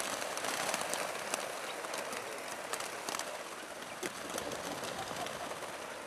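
A flock of chukar partridges flushing and flying off, many wings whirring in a dense patter with sharp single flaps, thinning out toward the end.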